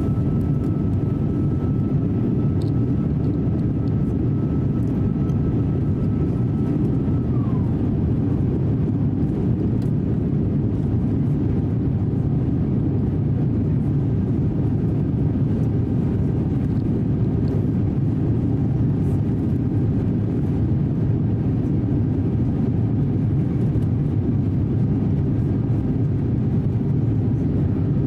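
Steady cabin roar of an Airbus A350-900 climbing after takeoff: its Rolls-Royce Trent XWB engines and the rushing airflow heard from a window seat. A thin high whine rides over the roar and slides down in pitch, fading about seven seconds in.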